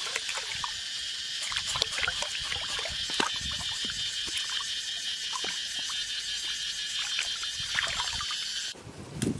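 Shallow stream water running and splashing as raw pork is rinsed and squeezed by hand in the current, with small splashes and drips throughout. The water sound drops away suddenly near the end.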